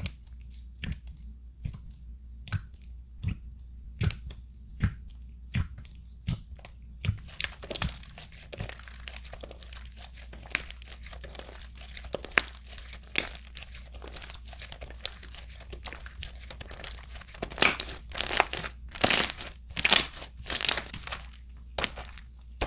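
White slime with small beads mixed in, squeezed and stretched by hand, crackling and popping. At first single pops come about once a second, then a dense crackle sets in, with a run of louder pops near the end.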